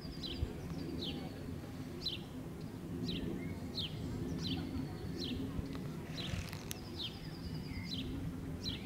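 Songbirds singing: a series of short, high notes that slide downward, roughly one a second, with a few brief high trills in between, over a faint low background hum.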